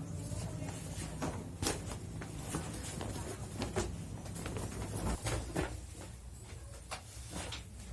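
Stiff, crinkly plastic packaging being handled and pulled open: scattered crackles and taps over a low steady hum.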